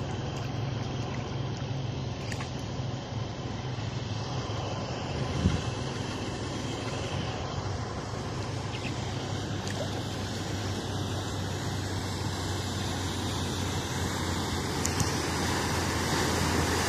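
A vehicle engine runs steadily under the wash of floodwater, growing louder over the last few seconds as a four-wheel-drive SUV wades through the flood toward the microphone, pushing a bow wave. There is a single thump about five seconds in.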